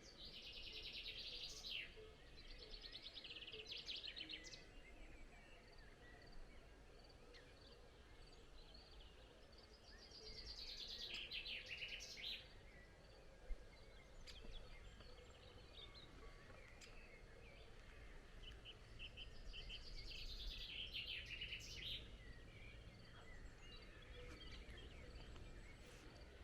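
Songbirds singing faintly: four phrases of quick high trills, each lasting about two seconds, over a low steady outdoor background hum.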